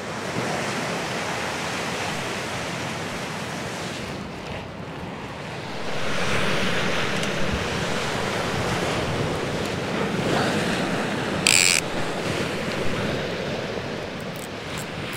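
Sea surf washing on the shore, with wind buffeting the microphone; the wash swells louder about six seconds in. A brief high-pitched sound stands out near the end.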